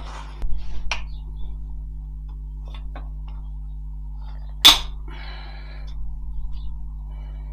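Tools and metal parts being handled during engine teardown work: a sharp knock about a second in and a louder one near the middle, each followed by light clinks and rattles, over a steady low hum.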